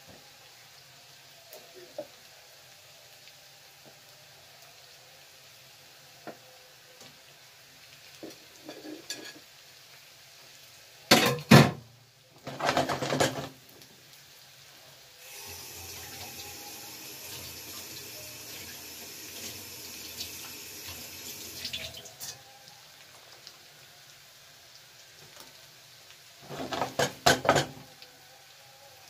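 Kitchen sounds: plates and utensils clattering in a few short bursts, and a kitchen tap running steadily for about six seconds midway, starting and stopping abruptly.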